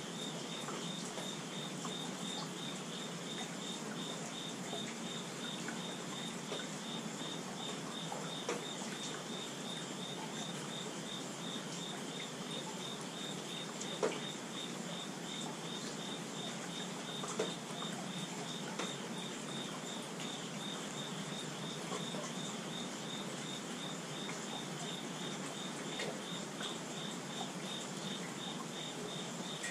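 Steady rainfall, an even hiss, with an insect chirping in a fast steady pulse on one high note throughout. A few louder single drips tick out, the sharpest about halfway through.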